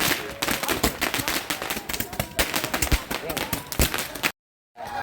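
A string of firecrackers going off, a dense rapid crackle of sharp bangs, cutting out completely for a moment near the end.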